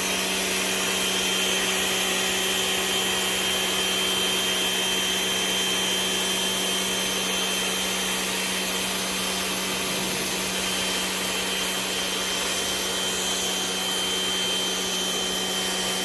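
Small Rock&Rocker electric pressure washer running steadily, its motor-driven pump giving a low hum with a thin high whine over the hiss of the water spray.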